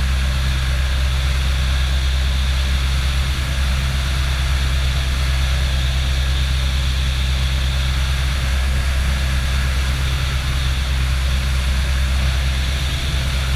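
Motor glider's piston engine and propeller droning steadily in flight, heard inside the cockpit, with a constant hiss over it.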